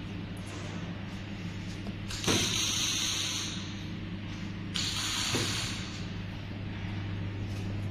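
Diesel injector test bench running with a steady low hum, and two loud bursts of hissing about two and five seconds in, each lasting roughly a second.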